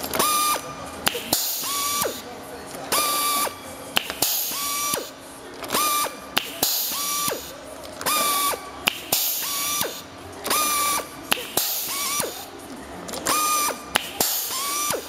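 Pneumatic spin-pull nut riveter (POP PNT800L-PC) cycling on M10 threaded inserts: about ten short bursts of its air motor whirring as it spins the mandrel in and out, each with a brief whine and a sharp click, roughly one every second and a half.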